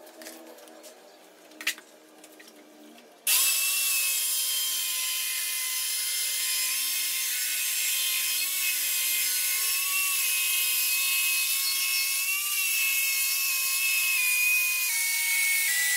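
A few light knocks, then about three seconds in a handheld electric cutter fitted with a diamond blade starts abruptly and runs with a loud, steady high-pitched whine as it cuts a strip from an acrylic sheet. Near the end its pitch drops in steps.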